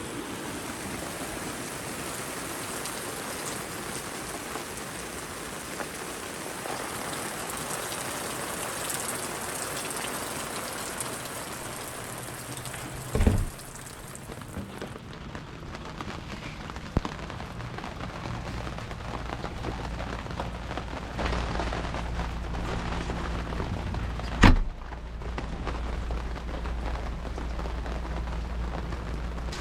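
Steady rain falling, an even patter of drops. There are two brief thumps, about thirteen and twenty-four seconds in, and a low steady hum joins in the second half.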